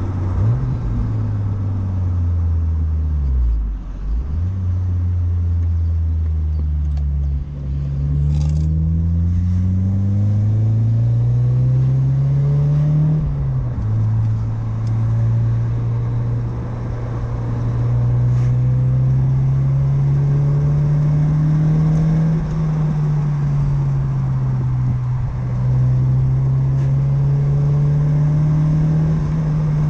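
1993 Mazda MX-5 Miata's 1.6-litre four-cylinder engine through an aftermarket Cobalt exhaust, heard from the driver's seat while driving. The engine note dips a few seconds in, then climbs steadily under acceleration, drops at an upshift about halfway through, and settles into a fairly steady cruise that rises and falls slightly.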